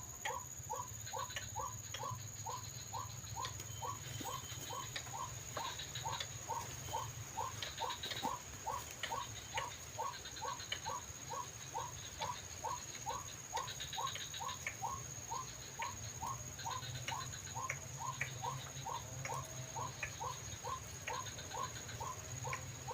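White-breasted waterhen call repeating in an even, monotonous rhythm of about two to three short notes a second, over a faint steady high whine.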